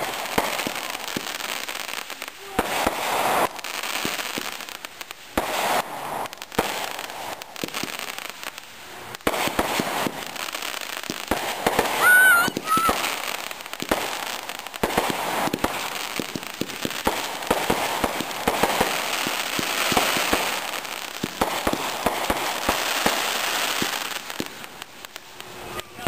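Consumer aerial fireworks going off in quick succession: a rapid string of sharp pops and bangs with crackling between them. About halfway through, a brief pitched sound rises above the bangs.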